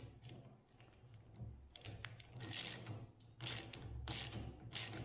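Hand socket ratchet with a 9/16-inch socket clicking in several short bursts, mostly in the second half, as a nut is tightened onto the garage door opener's trolley.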